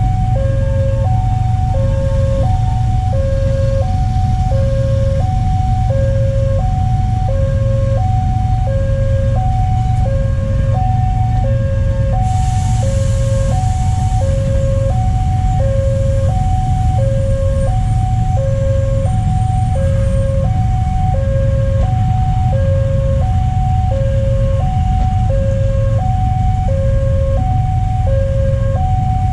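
Railway level-crossing alarm sounding its two-tone electronic chime, alternating high and low about once a second, over the low rumble of an electric commuter train passing slowly. A brief hiss comes about twelve seconds in.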